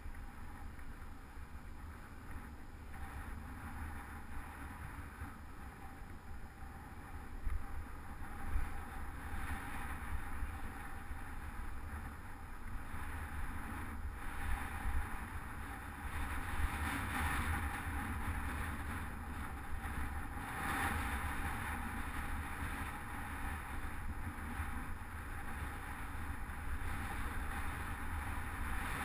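Wind buffeting the microphone of a handlebar-mounted GoPro HD Hero2 on a moving bicycle, over the rumble of the tyres on the road: a steady noisy rush with deep rumble, growing a little louder about halfway through.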